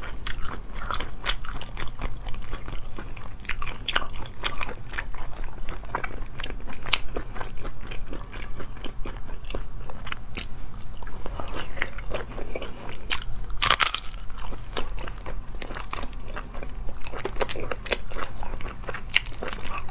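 Close-miked wet chewing and biting as pieces of spicy seafood in chili oil are pulled apart by hand and eaten, with many small sharp crunchy clicks and one louder crunch near the middle. A steady low hum runs underneath.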